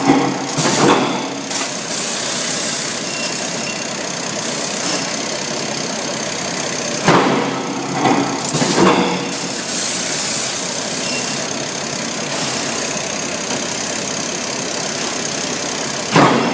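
Hot forging press running with a steady machine hum, struck by heavy ringing blows: one early, three in a row about halfway, one near the end. Two stretches of high hiss come between them.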